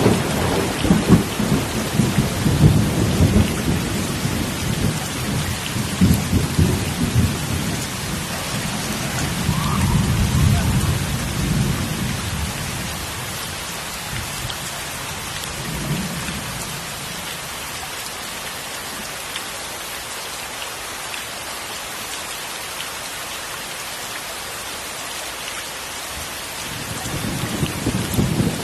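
Heavy rain falling steadily, with rolling thunder rumbling through the first dozen seconds, briefly again partway through, and building again near the end.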